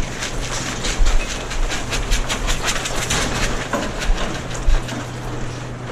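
Tractor running with a steady engine hum under irregular rattling and clanking.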